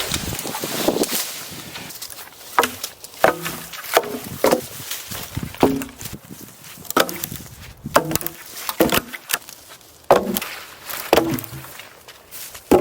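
Sharp wooden knocks, about a dozen at irregular intervals of roughly a second, each with a short hollow ring: wood being struck or chopped.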